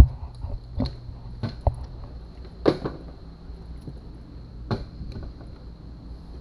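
A sharp knock at the start, then several lighter knocks and clunks spread over the next few seconds, over a steady high whine and a low hum.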